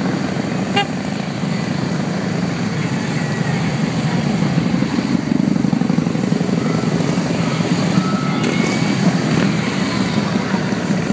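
A long line of motorcycles, largely Harley-Davidson V-twins, riding past one after another with a steady, loud exhaust rumble.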